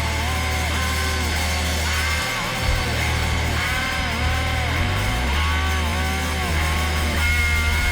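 Electric guitar played through a Lunastone Deep Metal high-gain distortion pedal: heavily distorted low notes held under a lead line of repeated notes that bend up and back down.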